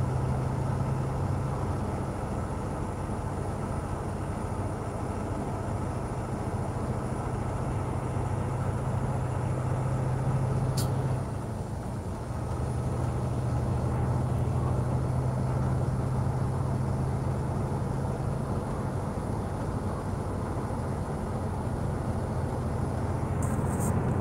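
Semi-truck engine running steadily while driving, heard inside the cab as a low, even hum. About eleven seconds in there is a sharp click, then the engine note drops out for about a second before it returns.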